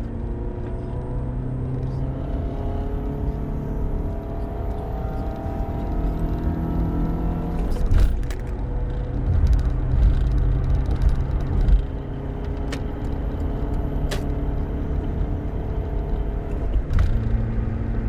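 2006 Subaru Forester's EJ25 flat-four engine pulling at around 3,000–4,000 rpm, heard from inside the cabin while the car accelerates on the road, with low road rumble. The engine note rises slowly over the first half, and a few short knocks come through, one about eight seconds in.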